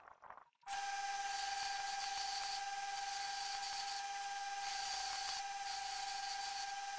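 Belt grinder running with a steady whine while a small steel piece is ground against its abrasive belt, a hissing grinding noise over the tone. It starts suddenly under a second in.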